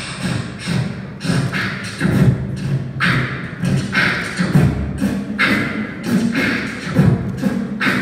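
Live beatboxing: a human beatboxer voicing a drum groove, with deep kick sounds and sharp hissing snare hits about once a second.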